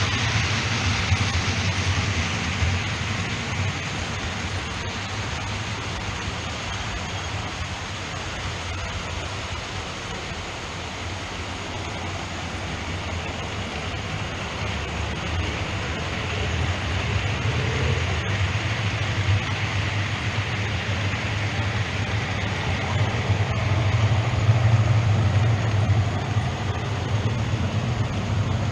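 OO gauge model trains running along the layout's track: a steady rumble and whirr of wheels and motors with a low hum. It dips a little in the middle and grows louder again in the second half.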